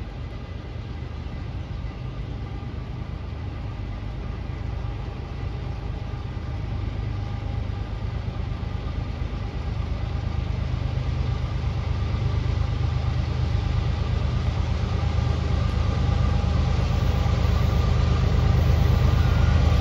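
Diesel freight locomotives heading an oil train, approaching. Their deep engine rumble carries a faint steady whine above it and grows steadily louder as they draw near.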